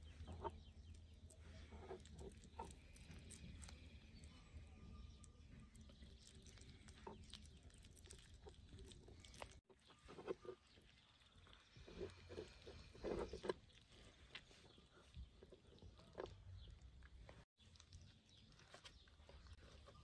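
Near silence: soft, scattered handling sounds of cabbage leaves being rolled and set down on a wooden board, with a few louder brief sounds around the middle.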